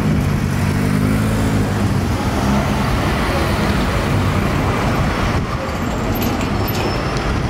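Street traffic: cars, a light truck and a minibus taxi passing close by on asphalt, with an engine's low drone strongest in the first couple of seconds.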